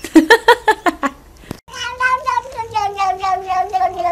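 A quick run of short cat calls, then after a break one long drawn-out tabby cat meow that slowly falls in pitch with a fast wavering pulse.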